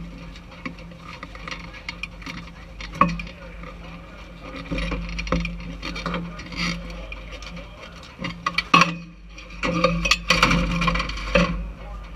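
Knocks, clicks and rubbing from people handling the parked race car's cockpit and window opening close to the in-car camera, busiest near the end, over a low steady hum.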